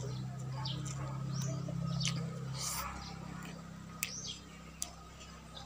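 Small birds chirping repeatedly, in short rising-and-falling notes, over a steady low hum that drops out a little past halfway. A few sharp clicks come near the end.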